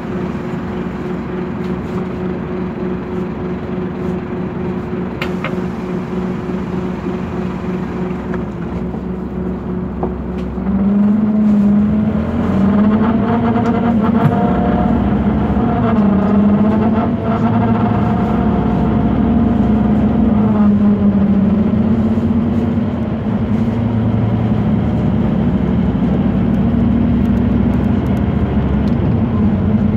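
Scania DC9 five-cylinder diesel engine of a Scania K230UB city bus, heard from inside the bus. It runs steadily, then about ten seconds in it grows louder, its pitch climbing and shifting for some ten seconds before holding steady at the louder level.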